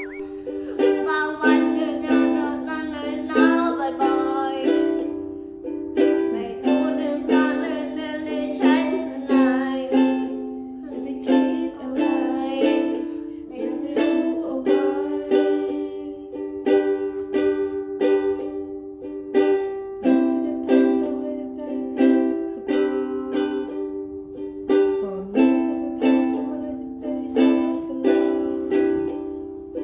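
Pop song cover played on a strummed acoustic string instrument, chords strummed in a steady rhythm, with a voice singing over it in places.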